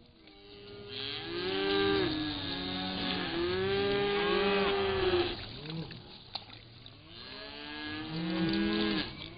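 Several cattle mooing at once, their calls overlapping and bending up and down in pitch for about five seconds, then a second bout of mooing about seven seconds in.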